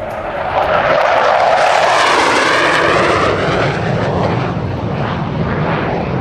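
Jet engine of a USAF Thunderbirds F-16 Fighting Falcon as it flies past. The noise swells to a peak about two seconds in, with a sweeping, phasing whoosh, then eases off slightly as the jet moves away.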